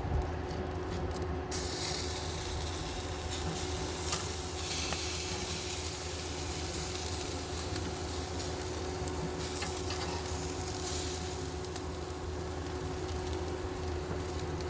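Food sizzling on a hot grill, a steady hiss that grows brighter about a second and a half in, over a steady low hum.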